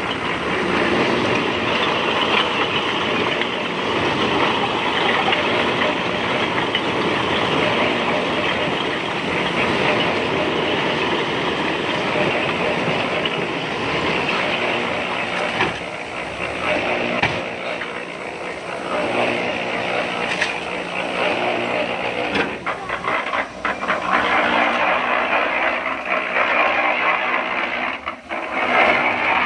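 Machinery running steadily, with irregular knocks and clatter joining in over the second half.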